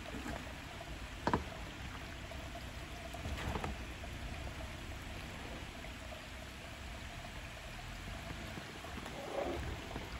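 Jeep Gladiator crawling slowly over a muddy, rocky trail, its engine running low and steady at a distance over a faint hiss. A sharp knock comes about a second in, with softer knocks and crunches later as the tyres work over rocks and debris.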